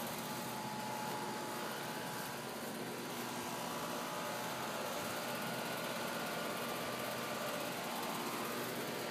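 Central air-conditioner condenser unit running: a steady fan hum and rush with faint wavering tones.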